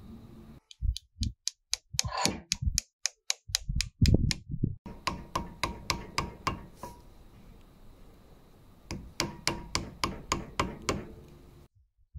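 Runs of quick, sharp taps and clicks, about five a second, with a few dull knocks. This is the wooden handle being fitted onto the screwdriver blade and clamped in a bench vise.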